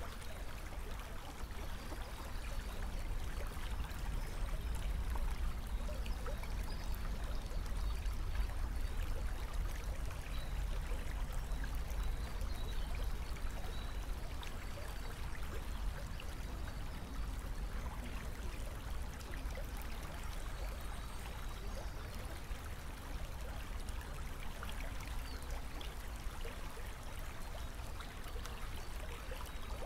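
Steady rush of trickling water, with a low rumble underneath.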